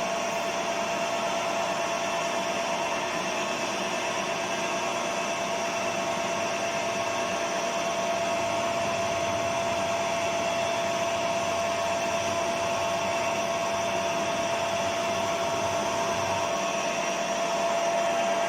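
A machine motor running steadily: an even hiss with one high, constant whine and no change in speed.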